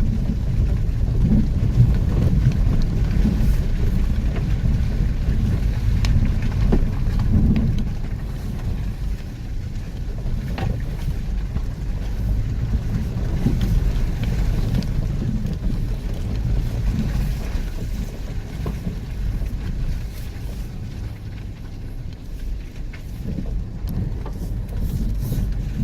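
A vehicle engine running with a low, steady rumble while driving over rough ground, with occasional knocks and rattles and some wind on the microphone.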